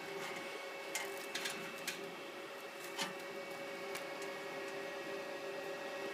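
Steady hum of rack-mounted network switches and their cooling fans, with a few light clicks and knocks as patch cables are handled.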